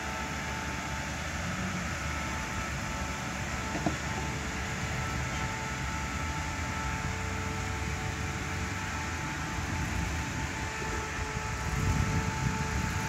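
Lexus LX470's 4.7-litre V8 running at low revs as the SUV crawls over rocks, a steady low hum. There is a sharp knock about four seconds in, and the low sound swells briefly near the end.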